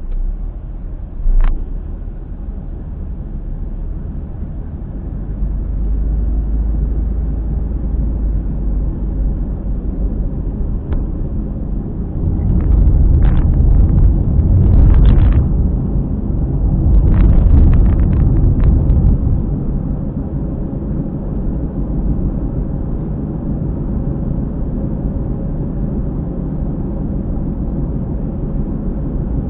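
Car driving, heard from inside the cabin: a steady low road rumble with a periodic noise from around a tyre that comes with road speed, which the owner puts down to a failing hub bearing. The rumble grows louder for several seconds midway, with a scatter of sharp clicks and knocks, and there is a single knock about a second and a half in.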